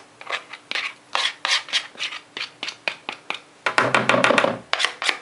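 Plastic spatula scraping softened butter out of a small plastic bowl: a run of short, rough scrapes, several a second, with a louder, denser stretch of scraping about four seconds in.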